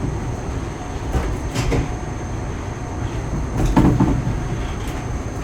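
Steady low rumble of a moving train heard from inside the carriage, with a few short knocks and rattles; the loudest comes a little under 4 seconds in.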